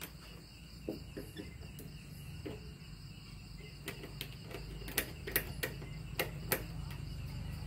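Small sharp metallic clicks and scratches from a makeshift pick, a strip of light-gauge steel, being worked in a car roof-rack lock, with a run of louder clicks in the second half. Insects chirp steadily in the background.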